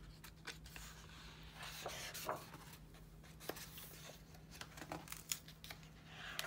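Pages of a large, heavy photobook being turned and smoothed flat by hand: soft paper rustles with small irregular taps and clicks.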